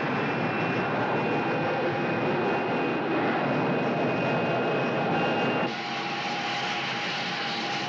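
B-52 bomber's jet engines running steadily in flight, a dense drone with a thin high whine. About two-thirds of the way through, the sound cuts to a quieter, hissier drone.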